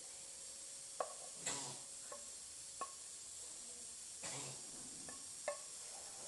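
Cooked green beans being tipped and scraped out of a frying pan onto a plate: a few sharp clinks with a short ring and two soft swishes of beans sliding out, over a faint steady hiss.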